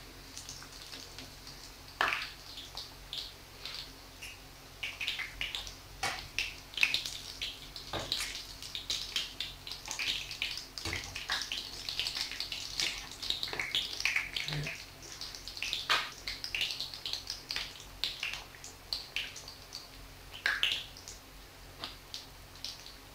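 Sticks of yeast dough deep-frying in hot oil in a frying pan, a dense sizzle of small crackles and pops. A handful of sharper knocks come as a metal spoon turns the sticks against the pan.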